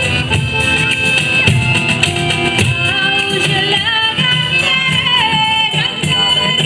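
Southern Italian folk band playing a tarantella live: a woman singing a wavering melody over strummed strings and a steady beat of tambourine-like percussion.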